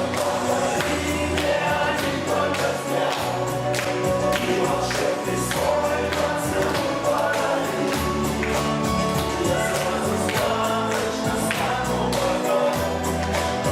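A song with singing voices over a steady beat and bass line.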